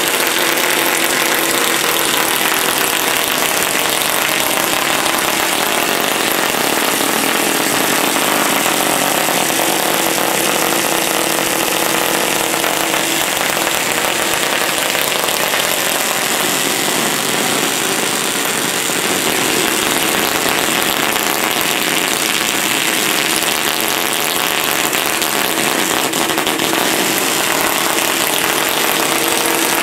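High-voltage DC arc from a homemade 20-stage Cockcroft-Walton multiplier, jumping continuously from its top terminal to a grounded electrode: a loud, steady crackling buzz with a hum through it.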